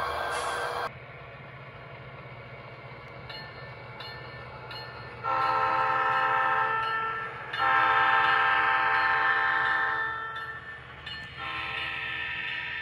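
Sound-equipped model diesel switcher locomotive running with a steady low engine rumble. Its horn sounds two long blasts, about five and eight seconds in, and a third begins near the end. A hiss cuts off about a second in.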